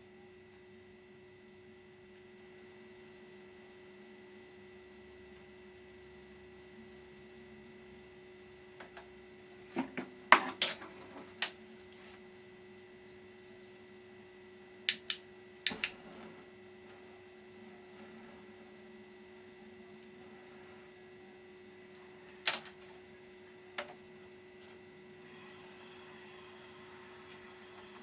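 Steady electrical hum in a workshop, broken by a few sharp metal clicks and knocks as tools and parts are handled on a truck radiator: a cluster about ten seconds in, two more around fifteen seconds, and single knocks later on. A faint steady hiss starts near the end.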